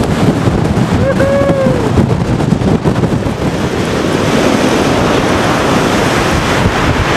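Gale-force wind buffeting the microphone, with one short, arching voice cry about a second in. From about four seconds in, heavy hurricane-driven surf breaking and washing up the shore under the wind.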